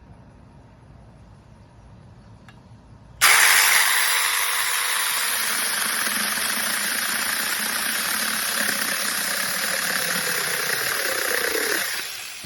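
Battery-powered 8-inch mini chainsaw running, starting abruptly about three seconds in and running steadily before winding down near the end.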